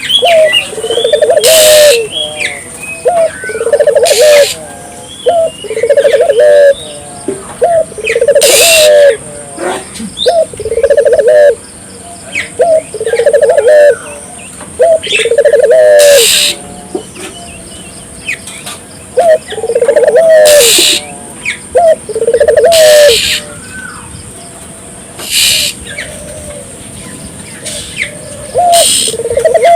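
Puter doves (collared doves) cooing vigorously in repeated phrases, about one every two seconds. Small birds chirp higher up, and there are brief hissing bursts between the phrases.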